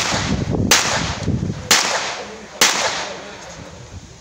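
Four pistol shots fired in under three seconds, spaced a little under a second apart, each followed by a short echo off the range.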